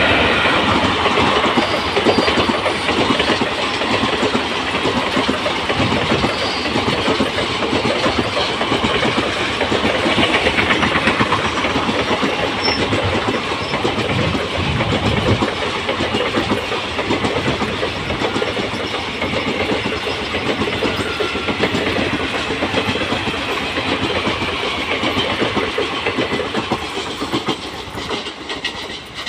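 Passenger express train passing at speed on a track close by, a steady loud rumble and rapid clatter of coach wheels over the rails, easing slightly near the end as the last coach draws away.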